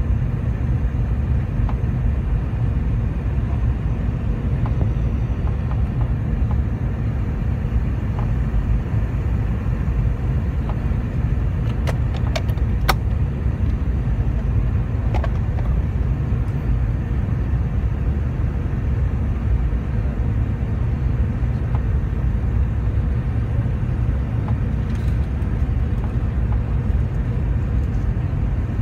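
Steady low rumble of cabin noise inside a Boeing 717 on approach: the engine and airflow noise of its two rear-mounted Rolls-Royce BR715 turbofans and the air rushing past the fuselage, with a faint steady hum. A few sharp clicks about halfway through.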